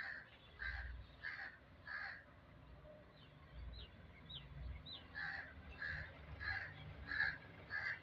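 A bird calling in a series of short repeated calls, about one and a half a second: four at the start, then a pause, then another run from about five seconds in. In the pause a few brief, high, falling chirps are heard.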